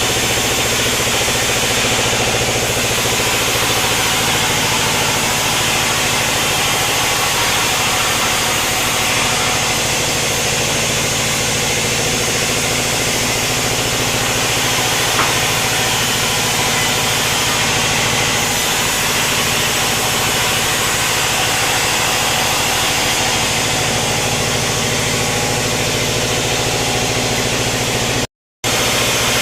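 Sawmill machinery running steadily: a constant engine-like hum with a dense hiss over it. The sound breaks off for a split second near the end.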